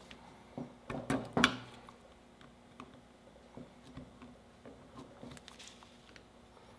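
Small metallic clicks and ticks of a hand tool working steel cotter pins in the pivots of a Honda CB450 rear drum brake panel, bending the pin legs over. A few sharp clicks come in the first second and a half, the loudest about a second and a half in, followed by faint scattered ticks.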